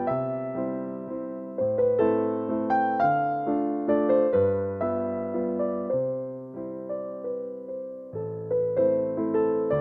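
Background music: a gentle electric-piano melody over slowly changing chords, each note struck and fading.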